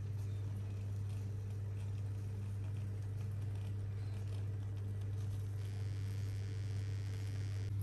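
Gas stove burner flame running steadily with a low hum and hiss, an eggplant roasting directly on it, with faint crackles from the charring skin.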